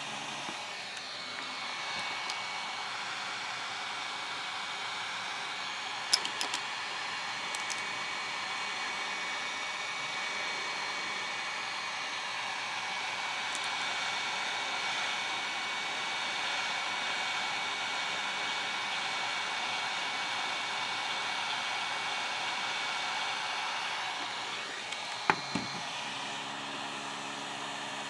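Hot air rework station blowing a steady rush of hot air, with a thin steady whine, onto a heat-shrink sleeve around an egg. A few light clicks of handling about six seconds in and near the end.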